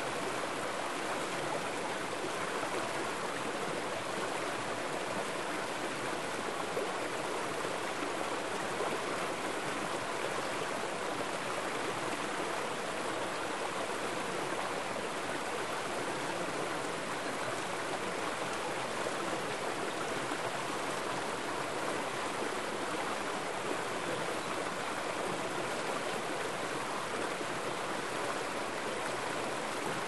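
Mountain stream water running steadily over a small rock cascade into a shallow pool.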